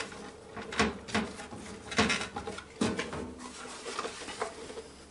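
Handling sounds from an Epson TM-T82II receipt printer's plastic case: a few separate sharp knocks and clicks, the clearest about a second apart, as the power lead is plugged in underneath and the printer is moved on the cabinet top.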